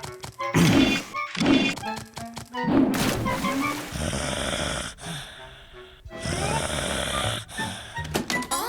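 Background music mixed with cartoon sound effects: short sudden hits in the first few seconds, then two stretches of hissing in the second half.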